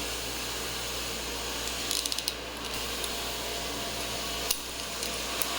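Ratchet crimping tool clicking as it is handled and set: a quick run of clicks about two seconds in, then single clicks later on, over a steady background hiss.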